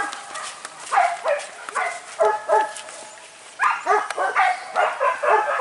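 Boar-hunting dogs barking and yelping in short, high calls. A few are spaced out at first, then a quicker string of them comes in the last two seconds.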